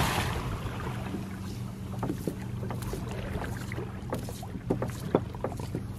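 A 30 hp outboard motor running steadily at idle, with the wash of a splash dying away in the first moment. A few light knocks follow as the pot rope pays out over the boat's side.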